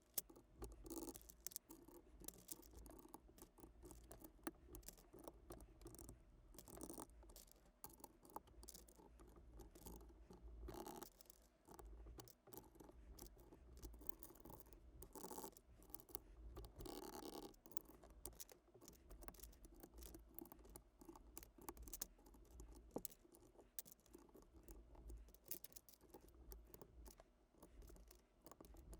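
Irregular small plastic clicks, taps and light scraping from hands working on a mechanical keyboard, a steady run of close, quiet handling noise.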